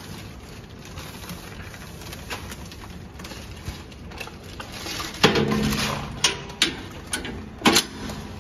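Hands working on the pull-belt assembly of a vertical packing machine while threading packing film: a brief low hum about five seconds in, then several sharp metallic clicks and knocks as the parts are handled.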